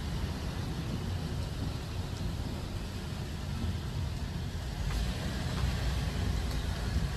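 Steady road noise of a car driving, engine and tyre sound mixed into an even hum.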